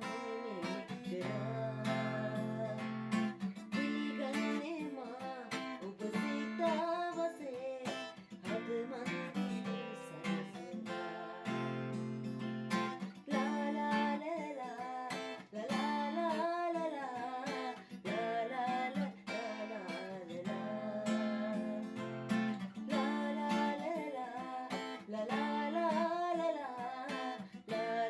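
Background song with acoustic guitar and a singing voice.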